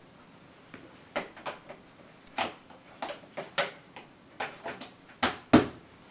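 Scattered plastic clicks and knocks as a mains plug and power leads are handled and plugged in at a power strip, with two louder sharp clicks close together about five seconds in.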